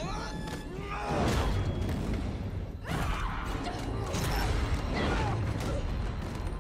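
Sound of a violent struggle in a film: short strained cries and grunts, scuffling and a couple of sudden rushing hits, over a steady low rumble.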